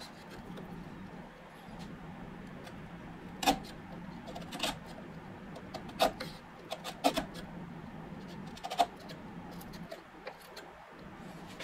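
Bench chisel being pressed by hand down through the wood fibres: a faint scraping with about five sharp clicks where the edge snaps through, spaced a second or so apart.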